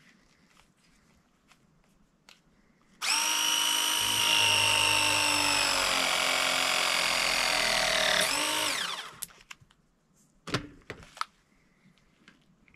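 Battery-powered ProPress tool crimping a copper pipe fitting. Its motor whines steadily for about five seconds, the pitch sinking slightly as the jaws close on the fitting, then falls away quickly as the press cycle ends. A few sharp clicks follow a second or so later.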